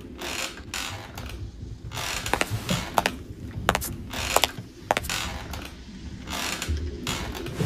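Irregular mechanical clicking and short rasping creaks, like a ratchet being worked, over a low rumble.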